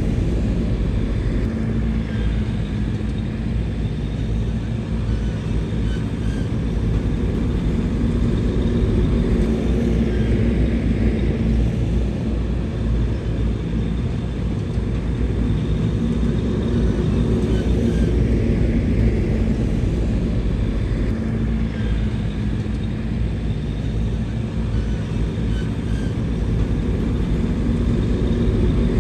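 Diesel engine of heavy earthmoving machinery running steadily, a low rumble with an even engine tone and faint light ticks now and then.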